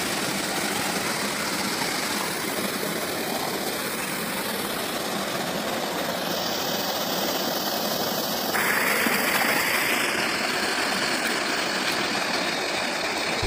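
Shalmala river water rushing and splashing over rock cascades: a steady, dense rushing noise that turns brighter about two thirds of the way in.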